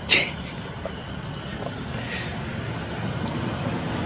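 Steady high insect drone of forest ambience, with a low engine rumble growing louder toward the end. A brief sharp high-pitched sound stands out just after the start.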